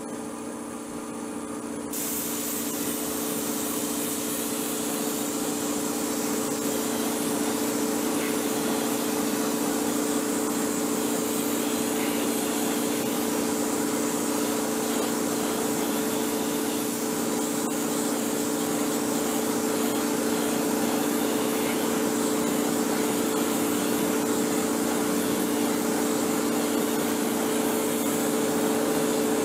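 Spray gun hissing steadily, starting about two seconds in, over the steady hum of a motor, while a wheel is sprayed in spray-on chrome coating.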